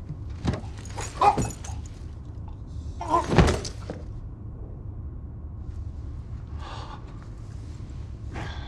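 A poisoned woman's short, strained choking gasps, a few in the first four seconds, the loudest about three seconds in, over a steady low rumble.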